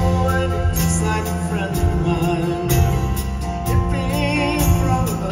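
Live band music: acoustic guitar and backing band playing over a steady beat, with sung vocals and a wavering held note a little before four seconds in.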